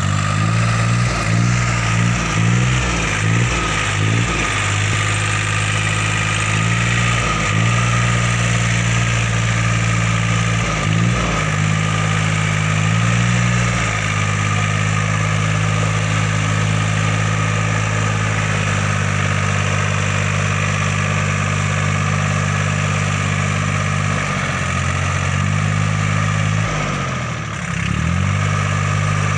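Kubota L2402DT compact tractor's diesel engine running as the tractor drives along. The engine speed rises and falls several times in the first half and again near the end, with a brief drop in speed shortly before the end.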